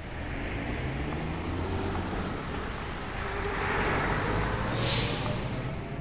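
Heavy road vehicle running past, its low engine rumble building over the first few seconds. About five seconds in there is a brief sharp air-brake hiss.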